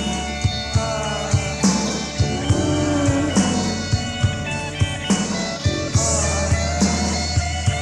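Punk rock recording with drums, electric guitar and bass playing at a steady beat.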